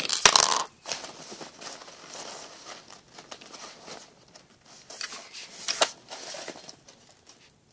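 A hand rummaging through a bag of small plastic toy figures: rustling and light clicking of the pieces against each other, loudest in the first second, with a sharper click about six seconds in.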